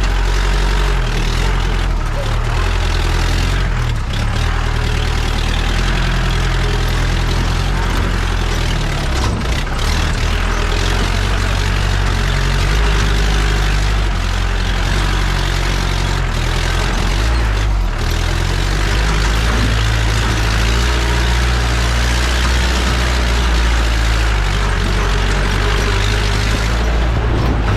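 Jeep engine running with its pitch shifting up and down, along with the steady noise of the vehicle travelling over an off-road track.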